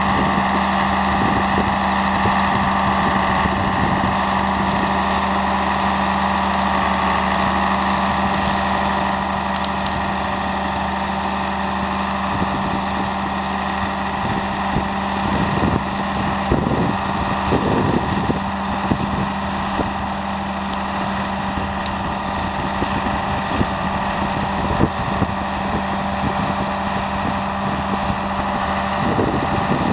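Allis-Chalmers HD11 crawler dozer's diesel engine running steadily as the machine pushes a pile of brush, with a constant hum and a few irregular knocks about halfway through.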